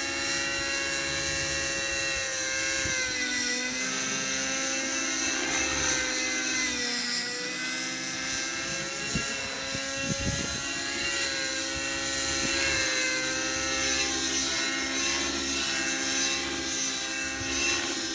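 Align T-Rex 600 nitro RC helicopter in flight, its glow engine and rotor head running with a steady pitched whine; the pitch sags and recovers about three seconds in and again around seven seconds. It is flying on a governor setting under test, with a clutch the pilot says is slipping a little.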